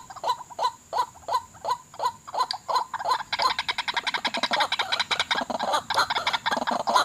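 White-breasted waterhens (wak-wak) calling: a repeated call about three times a second, joined about three seconds in by a faster, higher chattering.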